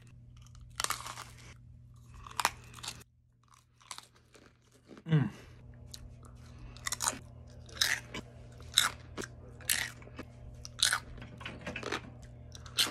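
Close-miked crunchy bites and chewing of Lunchables crackers stacked with cheese and pepperoni, then, after a short pause, a string of sharp crunchy bites of another small snack, about one a second. About five seconds in there is a short sound that falls in pitch.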